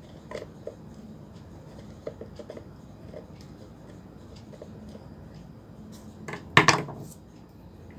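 Small clicks and scrapes of a screwdriver working at the screws of an electric kettle being taken apart, with a louder clatter about six and a half seconds in.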